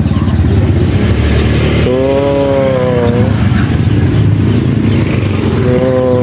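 Small step-through motor scooters running past on a narrow road, one passing close near the end. Two long, slightly wavering pitched tones sound over the engine noise, one about two seconds in and one near the end.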